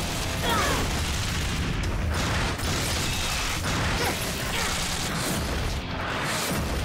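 Cartoon battle sound effects: a falling whoosh about half a second in, then a run of bangs and the clanking of a robot mech moving, over background music.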